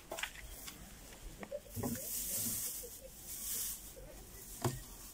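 Dry hay rustling as it is handled and pulled from a feed box, with a few light knocks.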